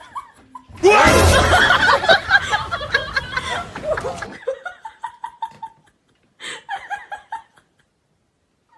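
People laughing hard, several voices at once, for about three and a half seconds; it cuts off suddenly, followed by a few quieter chuckles.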